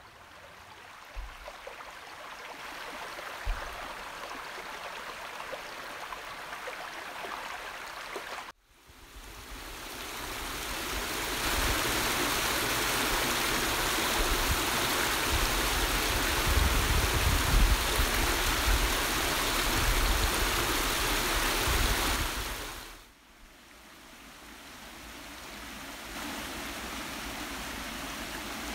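Shallow rocky stream running over stones, a steady rushing. It breaks off suddenly about a third of the way in, comes back louder where water spills over a small cascade, then drops out again and returns softer near the end.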